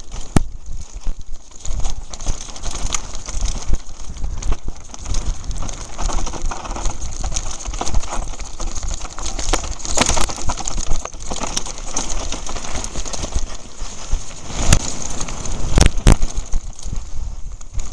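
Mountain bike descending a rough dirt and rock trail at speed: wind buffeting the microphone with a constant jolting rattle and sharp knocks over bumps, several close together near the end.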